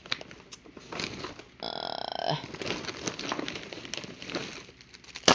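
Plastic packaging crinkling and rustling as it is handled, with a brief steady high tone of under a second about two seconds in.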